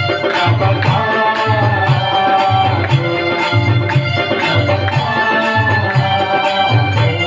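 Devotional music with a steady drum beat under sustained melody lines.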